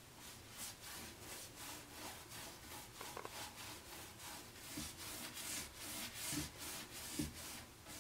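Chip brush bristles scrubbing and dabbing chalk-style paint over raised stencilling on a wooden drawer front: a run of short scratchy strokes, about three a second, working the paint in around the raised bits.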